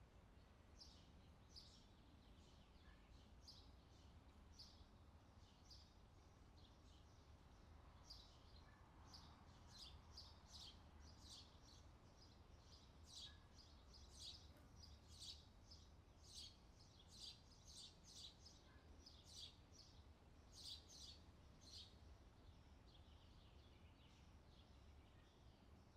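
Faint outdoor summer ambience: small birds chirping in quick short notes, sparse at first and busier from about a third of the way in, over a low steady background rumble.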